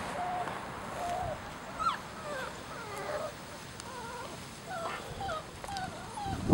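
Four-week-old basset hound puppies whimpering: many short, high, wavering cries that rise and fall in pitch, one or two a second, often overlapping.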